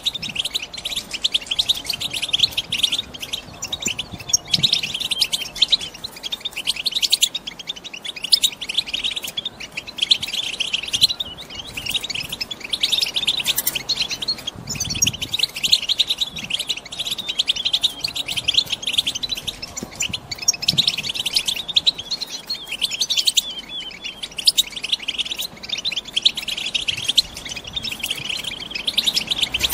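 Female European goldfinches twittering: a dense, continuous stream of rapid chattering calls that swells louder every few seconds. It is the excited chatter of hens in breeding condition.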